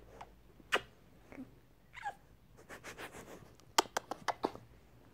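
Domestic cat giving a short, falling mew about two seconds in, a protest at being pestered. It comes amid quick kissing smacks: one about three-quarters of a second in and a rapid run of them near four seconds.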